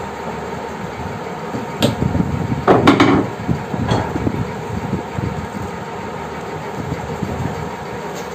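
A few short knocks and a brief clatter of a metal telescopic drawer channel being handled against a wooden drawer side, the loudest around the middle, over a steady background hum.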